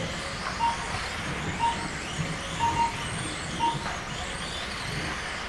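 Small electric motors of 1:28-scale Mini-Z RC cars whining, rising and falling as they speed up and slow down around a carpet track. Short high beeps come about once a second.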